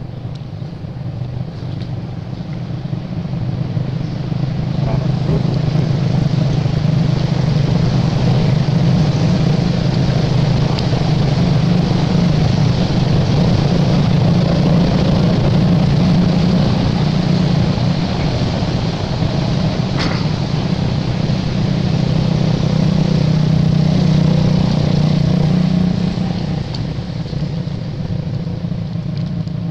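A motor vehicle's engine running close by, a steady low drone that builds over the first few seconds, holds loud, and drops away near the end.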